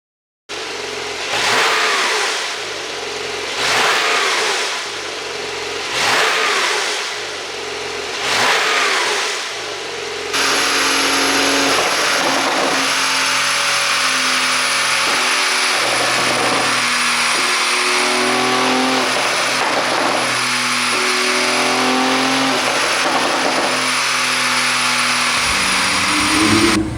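Porsche 911 Turbo S (992) twin-turbo 3.7-litre flat-six, on a pop-sound ECU tune, revved in four separate blips. It then runs continuously under way, its engine note stepping up and down.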